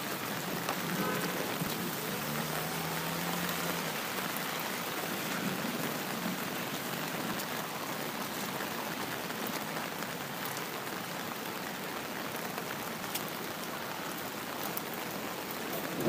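Steady rain falling, an even hiss with a few sharp drop ticks in the second half.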